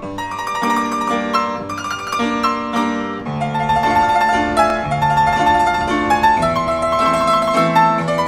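Instrumental background music: a light melody of short, separate notes, with a lower bass line joining about three seconds in.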